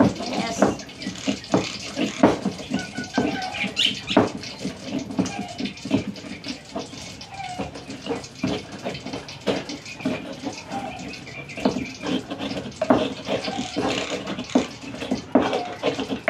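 Pestle (ulekan) crushing and grinding sambal in a cobek mortar: irregular knocks, about one or two a second, with gritty scraping between them.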